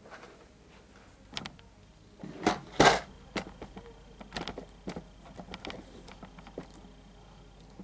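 Camera being picked up and repositioned: handling noise of knocks, clicks and rustles on the microphone, with the loudest bump about two and a half to three seconds in.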